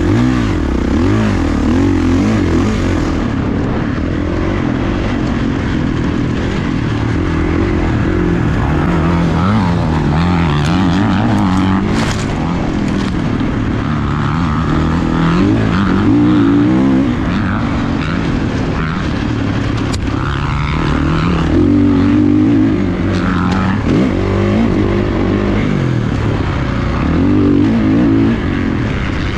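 Motocross dirt bike engine revving hard and easing off over and over as the bike is ridden around the track, its pitch climbing and dropping with each throttle change.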